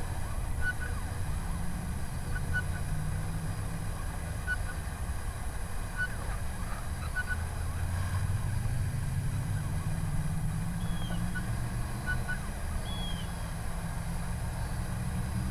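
Wind buffeting the microphone, a steady low rumble throughout, with faint short distant calls every second or two.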